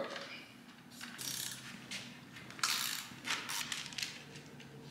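A hand ratchet tool clicking in a few short runs, working the bolts that hold the sled's skis.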